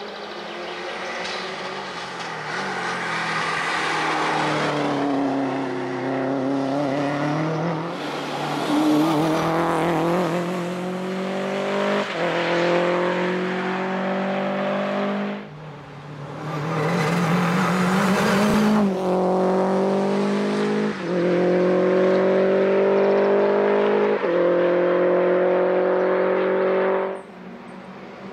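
Subaru Impreza WRX STI's turbocharged flat-four engine pulling hard uphill at full throttle. Its pitch climbs through each gear and drops sharply at every upshift. The sound breaks off abruptly twice and starts again on another run.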